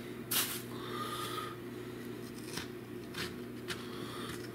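Knife work on peaches: a few short scrapes and clicks of a knife against the fruit and a plastic cutting board, the first and loudest about half a second in. A steady low hum sits underneath.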